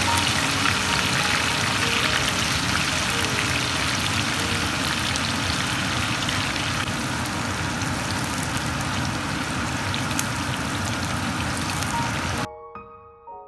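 Food sizzling and crackling in hot oil in a pan, over soft piano background music. The sizzle cuts off suddenly near the end, leaving only the piano.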